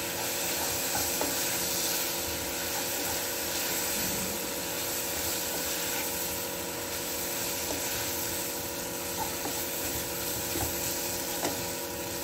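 Wooden spatula stirring and scraping vermicelli in tomato masala around a metal cooking pot, with irregular scraping and rubbing. A steady whirring hiss with a hum runs underneath.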